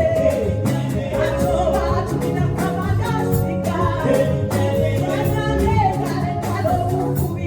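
A praise and worship team singing a gospel song over a full band with a steady beat.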